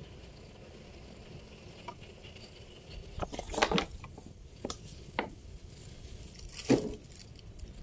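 Gardening handling noises while potting kencur: a few short scuffs and taps, starting about three seconds in with a quick cluster, then single ones near five and near seven seconds, over a faint steady background.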